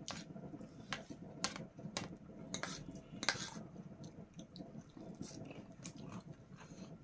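Fork and spoon clinking and scraping against a dinner plate while eating: a run of sharp clinks through the first three and a half seconds, sparser and softer after.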